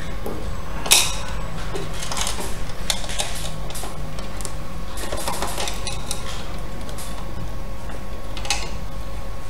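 Irregular clicks and small knocks from a domestic sewing machine and the knit fabric being handled at its presser foot, with one sharp knock about a second in, over a steady low hum.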